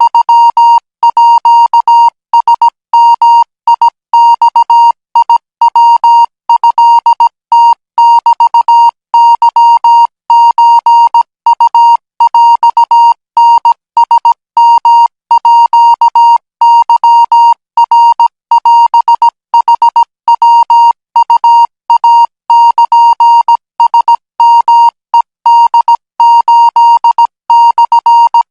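Morse code practice signal: a single steady high beep keyed on and off in short and long pulses, dots and dashes sent at 20 words per minute in Thai Morse code.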